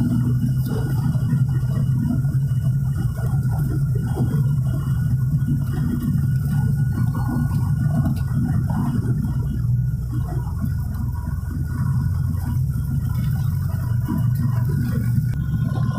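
Turboprop airliner's engines and propellers droning steadily, heard from inside the passenger cabin as the aircraft rolls along the runway. The drone holds a low hum with a couple of fainter higher whining tones.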